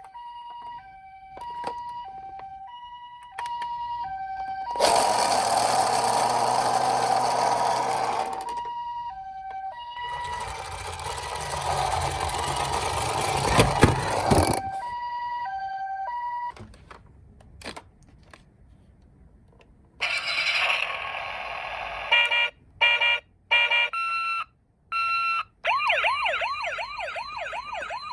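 Toy ambulance minicar's electronic two-tone "pee-poh" siren, high and low notes alternating about twice a second. It breaks off twice for loud rushing noise, the second stretch with a low rumble and a couple of sharp knocks. Near the end come choppy siren tones and then a wavering wailing siren.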